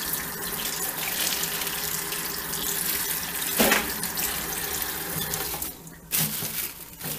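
Kitchen faucet running into a stainless-steel sink while okra pods are rinsed by hand under the stream, water splashing off them. The tap is shut off near the end.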